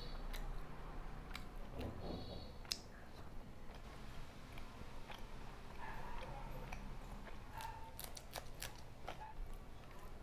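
Eating by hand: fingers working puri and soyabean curry on a steel plate, with scattered small clicks and taps, and chewing.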